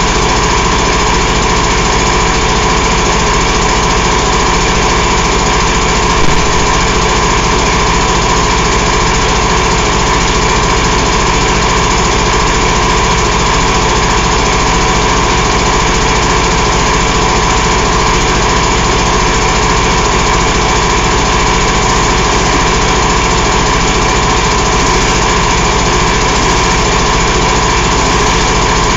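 Detroit DD15 14.8-litre inline-six diesel engine idling steadily.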